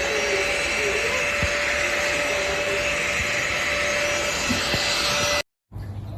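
Russell Taylors Vortex cordless vacuum cleaner with its 500W brushless (BLDC) motor running at steady speed: a steady whine over rushing air. It cuts off abruptly about five and a half seconds in, and a quieter low hum follows.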